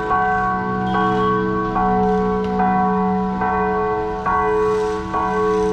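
Church bells ringing, struck in a steady rhythm of about one stroke every 0.8 seconds, each stroke leaving several pitches ringing on and overlapping.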